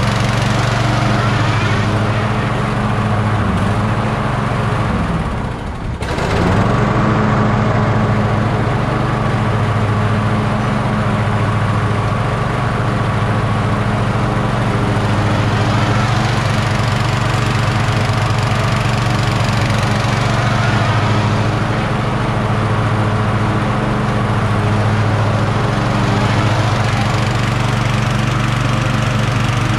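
Toro LX460 lawn tractor's 20 hp Kohler Courage engine running steadily as the tractor is driven forward and back on a test run after the crankshaft double-stack pulley swap. The sound dips briefly about five seconds in, then carries on as before.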